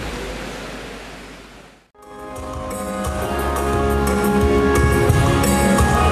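A steady noisy haze fades out to silence about two seconds in. Then instrumental music fades in, with a bass line and regular drum beats, growing louder until about four seconds in.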